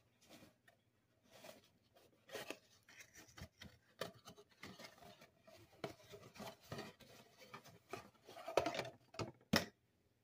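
Cardboard box of a Motorcraft FG-1114 fuel filter being handled and opened by hand: irregular rustling and scraping with small knocks. It is loudest near the end, as the metal filter is slid out of the box, finishing with a sharp knock.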